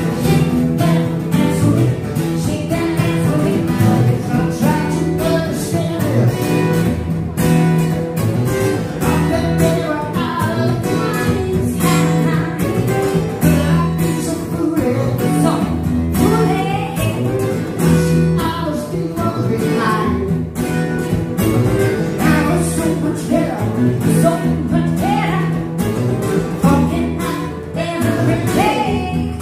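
Live music: an acoustic guitar strummed under a singing voice.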